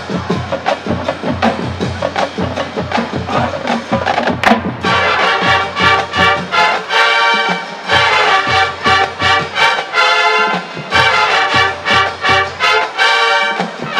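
College marching band playing: the drumline beats steadily, and the brass section comes in with chords about a third of the way through, playing a punchy, rhythmic figure over the drums.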